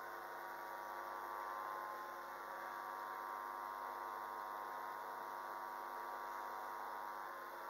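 Freight train of covered hopper wagons rolling slowly through a rail yard, heard from a distance as a steady, high whine.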